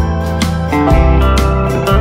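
Instrumental background music: a pitched melody over a bass line, with a steady beat of about two strokes a second.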